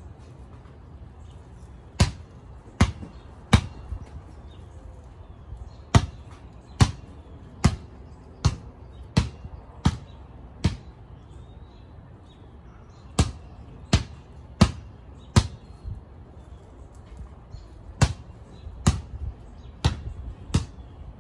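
A basketball being dribbled on concrete: sharp bounces about every three-quarters of a second, in runs of three to eight with short pauses between.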